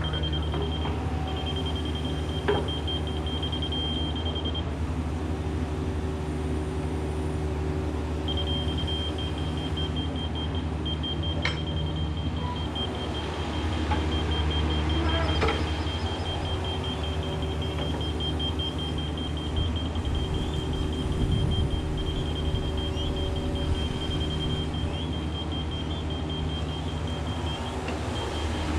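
Mini excavator's diesel engine running steadily under work, with a rapid high-pitched beeping alarm that stops for a few seconds near the start and then carries on.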